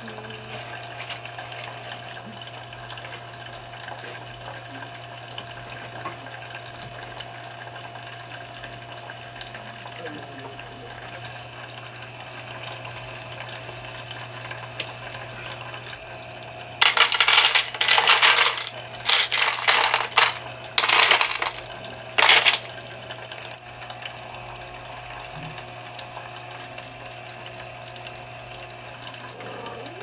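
Handfuls of small white pebbles poured into a clear bowl, clattering loudly in about four pours over some six seconds near the middle. Under it runs the steady trickle of a small tabletop fountain, with a low steady hum.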